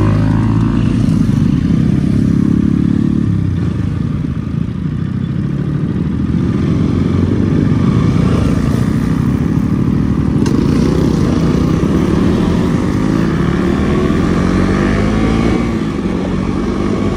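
Motorcycle engine running on the move, its note holding steady and then rising and falling with speed.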